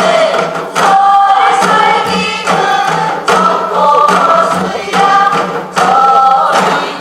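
A group of voices singing together over backing music, in held phrases of a second or two separated by short breaths.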